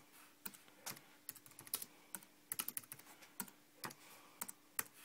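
Typing on a computer keyboard: a string of irregular key clicks, quickest in a run about halfway through, as a search phrase is typed in.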